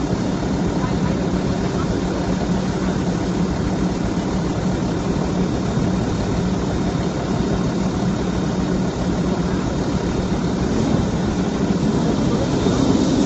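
Garbage truck engine idling steadily with a low hum, getting slightly louder near the end.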